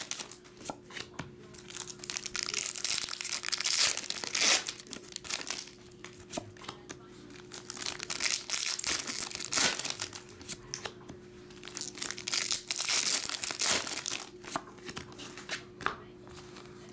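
Foil wrappers of Pokémon Fusion Strike booster packs being torn open and crinkled by hand, in several bursts of crinkling with short pauses between.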